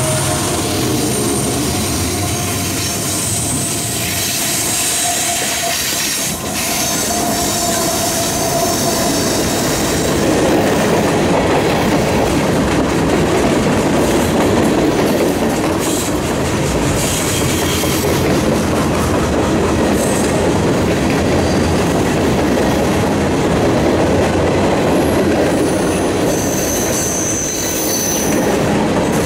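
Norfolk Southern freight train passing close by. The diesel locomotives' engines are heard at first, then freight cars roll past with a steady, dense noise of wheels on the rails. A high wheel squeal comes near the end.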